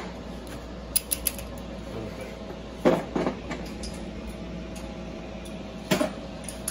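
A few sharp metallic clicks and clanks of hand tools being handled, in three short clusters spread over the few seconds, over a steady background hum.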